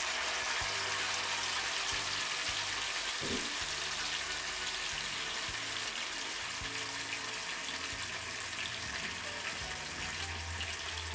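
Masala-coated pomfret frying in hot oil in a shallow frying pan: a steady sizzle that eases off slightly as it goes.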